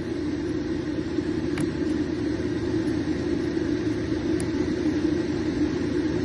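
Steady low rumble, with a few faint clicks from a Lishi pick-decoder working in a car's trunk lock.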